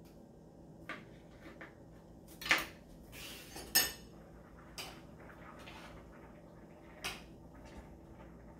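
Glass pan lid clattering on a square nonstick pan as it is lifted and set back: two loud clanks about two and a half and four seconds in, the second ringing briefly, then a few lighter clinks.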